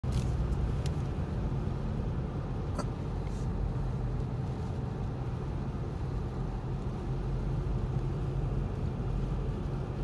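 Steady low rumble of road and drivetrain noise inside a 2023 Kia Stinger GT2's cabin, driving on an iced-over road, with a few faint ticks in the first few seconds.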